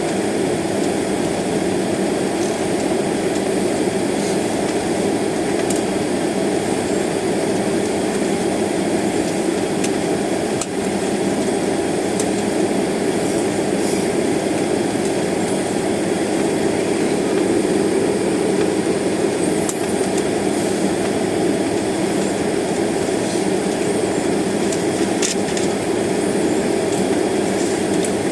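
Airliner cabin noise while taxiing: the jet engines at low taxi thrust give a steady, even drone with a dull hum.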